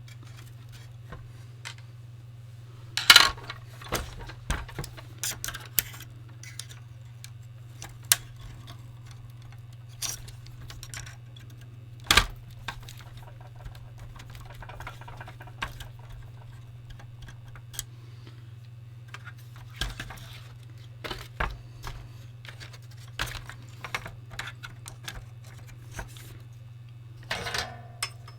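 Scattered small clicks, taps and clinks of hand tools working a VIC-20's power switch loose from its board and mounting, with louder knocks about three seconds in and again about twelve seconds in, over a steady low hum.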